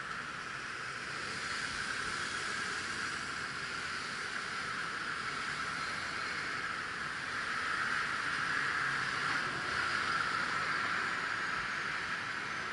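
City street traffic: a steady hiss of cars passing through the intersection, swelling somewhat near the end.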